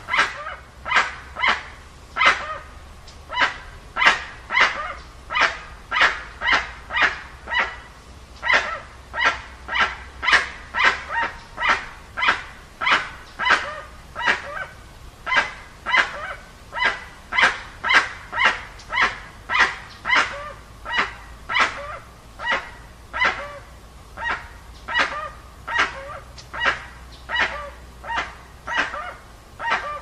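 A jacu, a Penelope guan, calling over and over: a long, evenly spaced series of short calls, about two a second.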